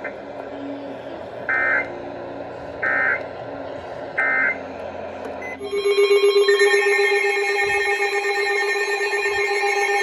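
Three short bursts of the Emergency Alert System end-of-message signal, about a second and a half apart, over broadcast hiss; they mark the close of the marine warning. About five and a half seconds in, a loud, steady electronic alert tone with several pitches starts, pulsing slightly, as the next alert begins.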